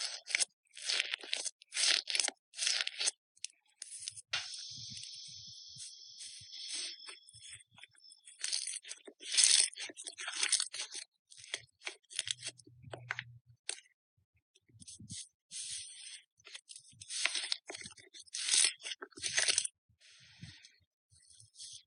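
Slime being squeezed and pulled by hand, giving quick irregular crackles and pops, with a steadier hiss of air or stretching for a few seconds about a quarter of the way in.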